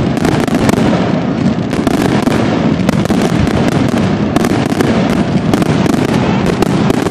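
Aerial fireworks display going off in a dense, continuous barrage: many overlapping bangs and crackles, several each second, with no gaps.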